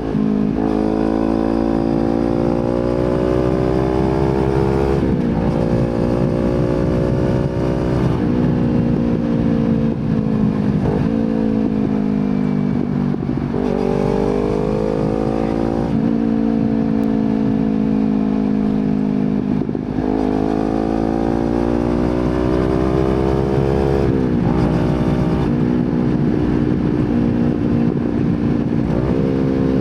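Kawasaki Z250 motorcycle engine through an aftermarket slip-on exhaust, riding along: the revs climb and then drop sharply at each gear change, about half a dozen times, over a steady low rumble of wind and road noise.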